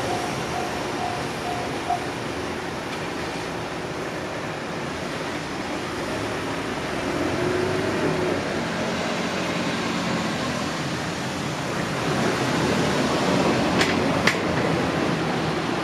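Railway level-crossing alarm sounding its last few repeated tones, which stop about two seconds in, leaving a steady rushing background noise. A few sharp clicks come near the end.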